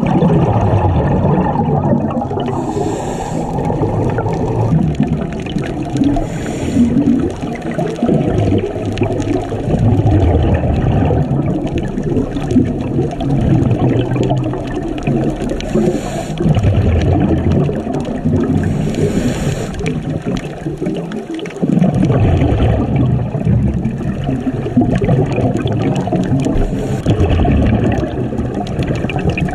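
Muffled, steady rushing water noise recorded underwater, with a faint higher hiss every few seconds.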